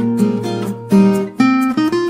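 Background music: acoustic guitar plucking and strumming a melody.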